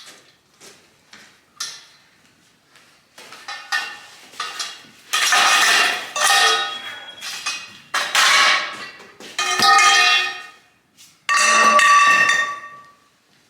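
Metal trampoline frame tubes clanking and rattling against each other as they are handled, in several bursts with a ringing metallic tone after the strikes.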